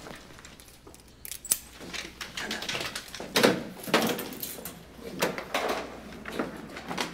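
A person and a dog moving about: irregular footsteps and rustling, with light metallic clinks scattered through.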